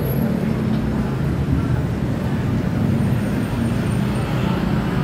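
Steady city traffic noise: the low rumble of many car and truck engines on a busy multi-lane road.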